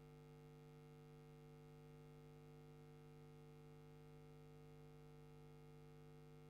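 Near silence: only a faint, steady hum made of a few unchanging tones, with no other sound.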